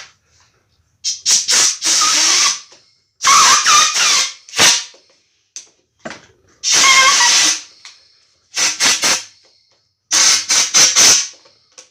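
Compressed-air blow gun hissing in a run of short and longer blasts, blowing air under a motorcycle throttle grip to loosen the rubber so it slides off the throttle tube.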